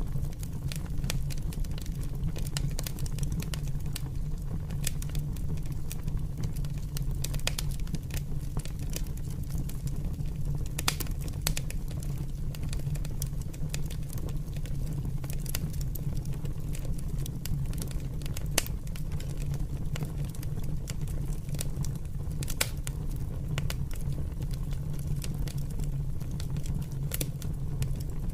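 Large open fire burning: a steady low rumble of flames with frequent sharp crackles and pops, one pop a little louder about two-thirds of the way through.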